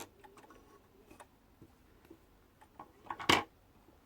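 Light scattered ticks and clicks from the mechanism of a vintage Pinnock zigzag sewing machine being worked by hand, with one loud, short clack about three seconds in.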